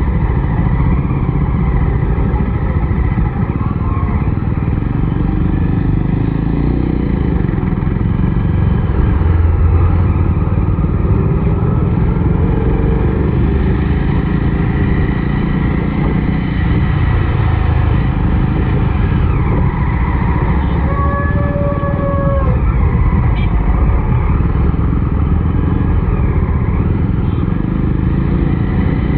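Jawa 42 BS6's single-cylinder engine running steadily under way, heard onboard with road and wind noise. A short steady tone sounds above it about two-thirds of the way through.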